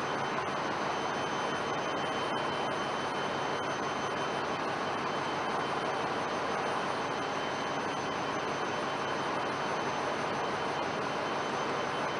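Steady, even rushing background noise with a few faint, high-pitched steady tones above it; no tool clicks or knocks stand out.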